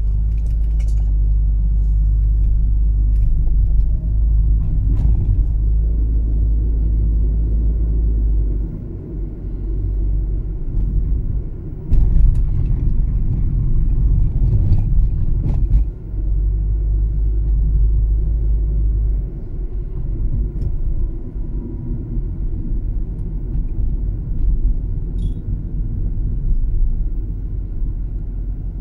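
Low rumble of a car driving on city streets, heard from the car. The rumble swells and drops several times, with a few faint knocks.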